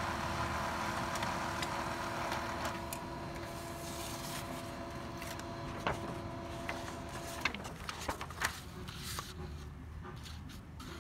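HP Color LaserJet M277n laser printer running a print job with a steady mechanical hum of several fixed tones, which stops about seven and a half seconds in; a few light clicks follow.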